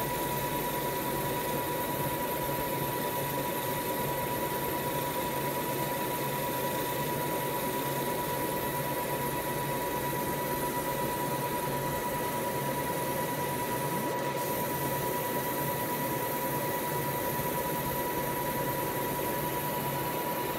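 Fiber laser marking machine running while it engraves a knife blade: a steady hiss with a constant high whine over a faint pulsing low hum.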